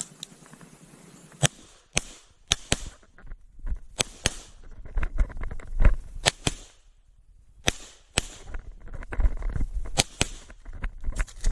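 CZ 75 Tactical Sport pistol firing a string of shots during an IPSC stage, many of them in quick pairs, with short gaps while moving between targets.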